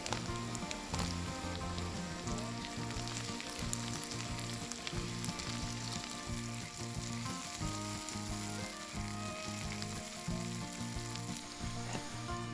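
Diced onion and carrot slices sizzling as they fry in oil in a nonstick pan, with the carrot slices dropping in at the start. A silicone spatula stirs them, adding light clicks and scrapes over the steady sizzle.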